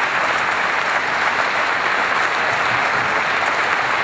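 An audience applauding steadily, with continuous dense clapping from many hands.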